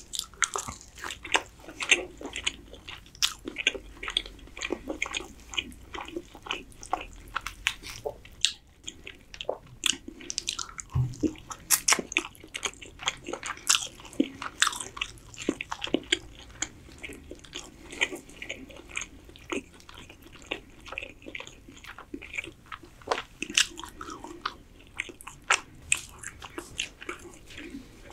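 A person chewing and biting into cooked chicken and rice: an irregular, quick run of mouth clicks and smacks.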